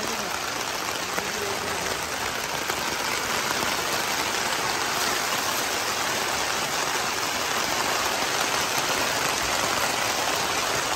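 Heavy rain pouring down, a loud, steady hiss of rainfall that holds even throughout.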